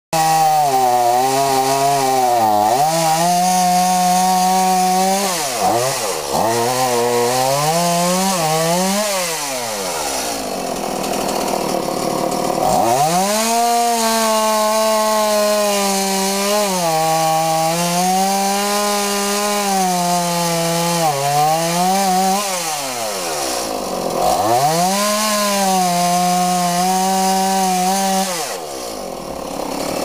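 Small two-stroke petrol chainsaw cutting into a tree trunk at full throttle. The engine repeatedly drops toward idle and revs back up, with the longest lull around ten to thirteen seconds in. It falls away near the end.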